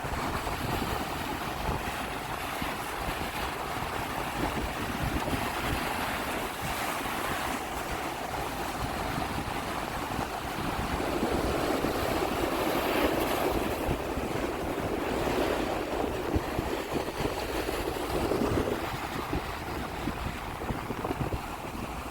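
Sea waves washing and breaking on the shore, with wind buffeting the microphone. The surf swells louder about halfway through and eases off again a few seconds before the end.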